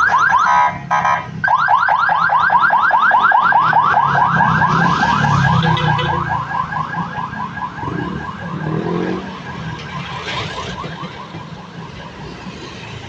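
Ambulance siren sounding a fast yelp, a quick rising sweep repeated about five times a second. About a second in it switches briefly to a steady pulsing tone, then goes back to the yelp and fades as the ambulance drives away, over street traffic rumble.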